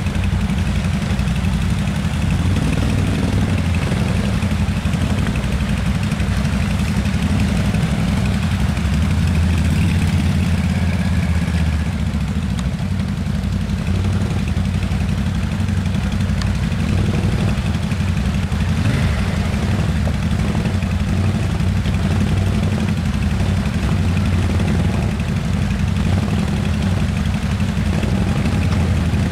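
Several ATV engines running at low revs as the quads crawl through a flooded stream, a steady low drone with small changes in revs.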